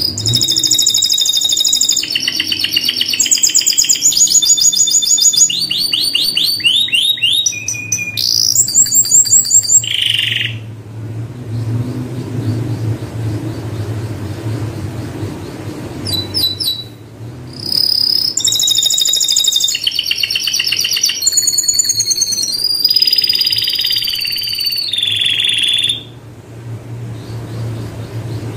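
Domestic canary singing: fast trills and rolling runs of rapidly repeated high notes. The song comes in two long stretches with a pause of several seconds between them, over a faint steady low hum.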